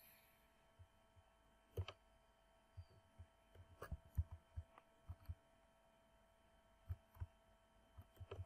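Near silence: room tone with a faint steady hum, a few faint computer-mouse clicks and scattered soft low thumps.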